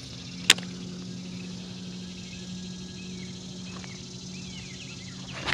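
Baitcasting reel giving one sharp click about half a second into a cast, over a steady low hum; a few faint chirps near the middle and more small clicks at the very end.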